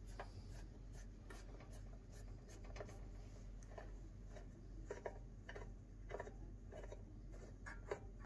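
Faint scraping and scattered light clicks of a long screw being worked out of an oscilloscope's sheet-metal case.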